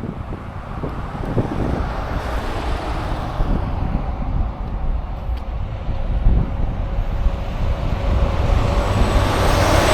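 Road traffic passing on the highway, a steady rushing that swells near the end as a vehicle comes by, over low gusts of wind buffeting the microphone.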